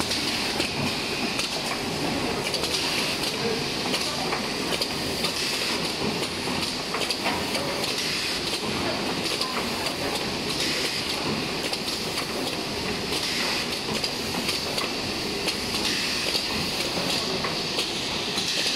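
Automatic roller-sleeve cutting machine running: a steady mechanical clatter with frequent sharp clicks and a hiss from its pneumatic parts.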